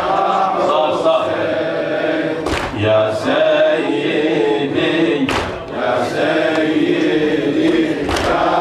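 A man chanting an Arabic latmiyya (a Shia mourning lament) into a microphone, with a congregation chanting along. Sharp slaps come about every three seconds, with fainter ones between: the mourners' chest-beating (latm) in time with the lament.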